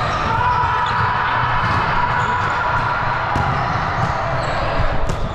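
Volleyball game in a gym: scattered thuds of the ball and players' shoes on the court, with a steady high tone lasting about four seconds under it.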